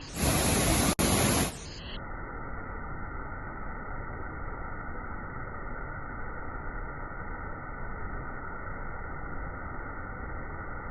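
Waterfall water rushing as a steady, even noise. Near the start a much louder rush of noise takes over for just over a second, then stops abruptly.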